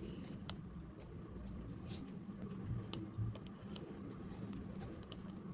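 Quiet eating sounds: scattered small clicks and taps of a spoon and mouth while eating boba ice cream, over a low steady hum.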